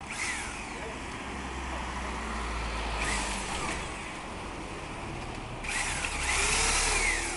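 Electric drill with a paddle mixer stirring a grey mortar-like mix in a plastic bucket; the motor's whine rises and falls in pitch as its speed changes, and the sound grows louder about two-thirds of the way through.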